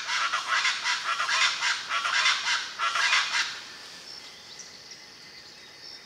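Black-banded woodcreeper singing: a fast run of repeated notes that stops about three and a half seconds in, leaving faint high insect tones.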